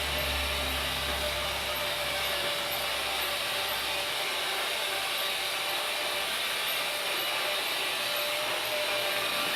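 Freight train running, a steady rushing noise with a low rumble that fades out about four seconds in and a faint steady tone underneath.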